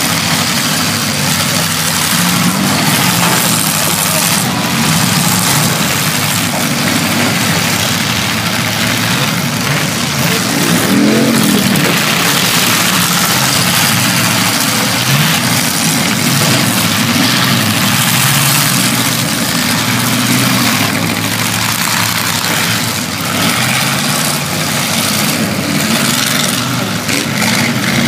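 Several demolition derby cars running and revving at once, their engine notes rising and falling, with scattered sharp bangs of cars hitting each other.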